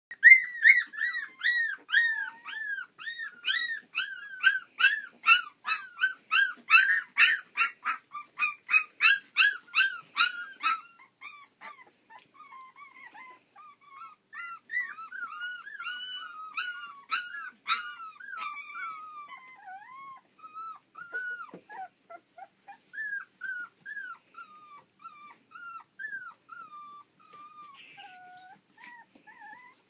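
Nova Scotia Duck Tolling Retriever puppies, about three and a half weeks old, crying and yelping in high-pitched voices. A fast run of loud yelps, about three a second, lasts for roughly the first ten seconds and then gives way to softer, scattered whimpers and whines.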